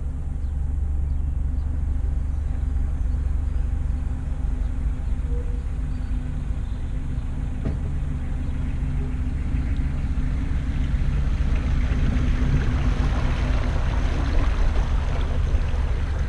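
Widebeam canal boat's engine running at a steady low cruising pace, a constant low drone. A rushing noise builds up over it from about two-thirds of the way through.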